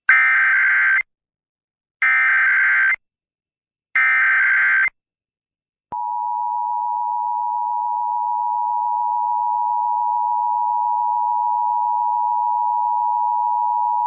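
Emergency Alert System header on FM radio. It opens with three one-second bursts of SAME digital data tones, a second apart. About six seconds in, the steady two-tone EAS attention signal (853 and 960 Hz) begins and holds to the end. Together they mark the start of a Required Monthly Test.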